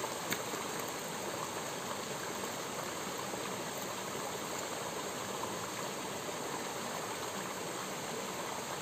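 A small rocky stream running steadily, water pouring over a low cascade into a pool.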